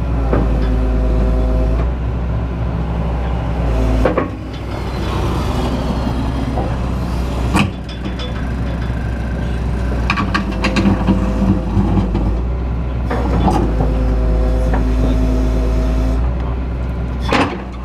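Excavator engine running with a steady low rumble, while the hydraulics whine in stretches as the controls are worked. Several sharp knocks are heard, about four seconds in, near eight seconds, around ten seconds and near the end.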